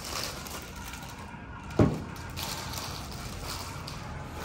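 Plastic bag rustling and crinkling as a car audio amplifier is unwrapped by hand, with one sharp knock a little under two seconds in.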